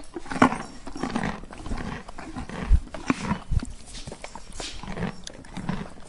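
Koala chewing eucalyptus leaves: irregular crunching, with a couple of low thumps about halfway through.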